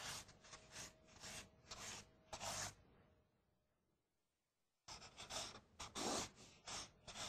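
Pen strokes scratching across a large sheet of paper as lines are drawn. A run of short, quick strokes, a pause of about two seconds, then another run of strokes.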